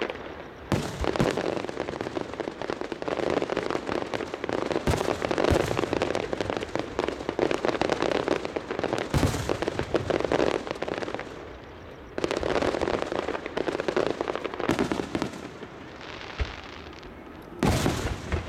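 Aerial fireworks show: a continuous dense crackle of many small pops, with a sharp bang from a bursting shell every few seconds, about seven in all, the last one near the end.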